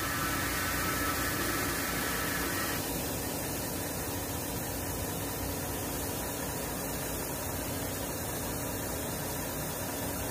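Truck engine idling, heard as a steady low hum under an even hiss, with a higher whine over the first three seconds that then stops.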